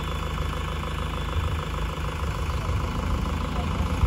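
Flatbed tow truck's engine running steadily while it drives the bed winch pulling a car up the tilted bed. The low drone grows a little stronger about a second and a half in.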